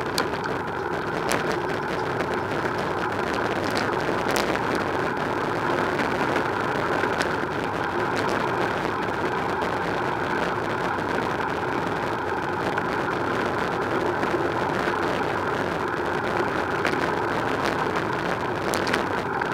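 Steady rolling noise of a bicycle riding along a city street, with wind on the camera microphone and a few sharp clicks and rattles from the bike.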